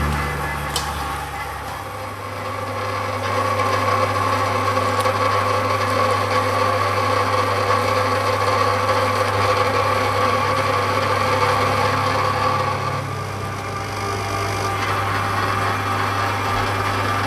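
Motor-driven meat grinder running with a steady low hum and a grinding noise as it minces meat. It grows louder about three seconds in and eases briefly near the end.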